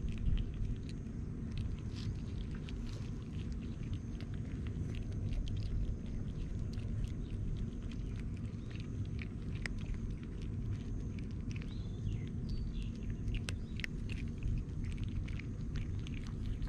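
Several young cats crunching dry kibble: a dense, irregular run of quick crunches over a steady low rumble.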